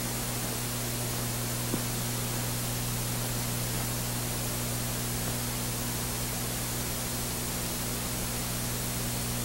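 Steady hiss with a low, steady hum from an old film soundtrack, with one faint tick about two seconds in.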